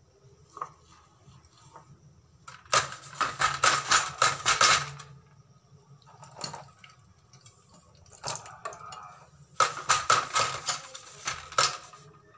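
Stainless steel dishes being scrubbed with a scouring pad: two spells of rapid, scratchy scrubbing a couple of seconds each, with a few light knocks of the utensils between.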